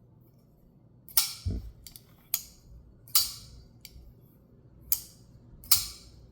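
Titanium flipper knife being flipped open and snapped shut over and over after reassembly: a string of sharp snaps, about one a second, each dying away quickly.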